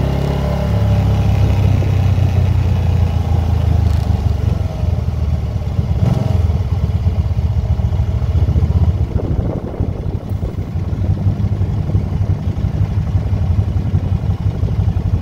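Can-Am motorcycle engine running under way, a steady low hum. The engine note eases off about nine seconds in and carries on lighter.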